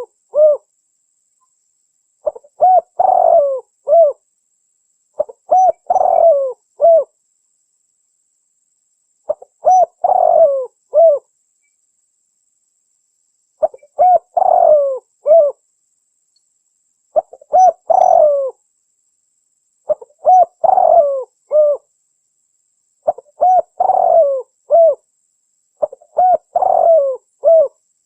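Spotted dove (dekukur) cooing: a phrase of a few short coos rising to a longer, louder coo and a final note, repeated about every three to four seconds with silence between.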